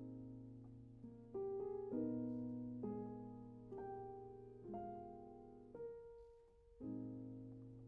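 Background music: soft piano chords struck about once a second, each fading out, over a steady low note.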